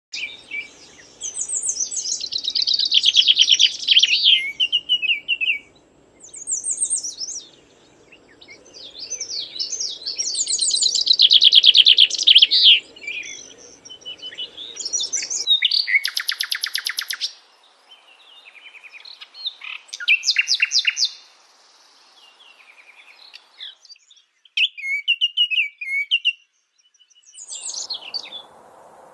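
Songbird song in a series of phrases of rapid, varied chirps and trills separated by short pauses, with a harsher, buzzy phrase a little past halfway. A faint low rumble sits under the song during the first half and then stops.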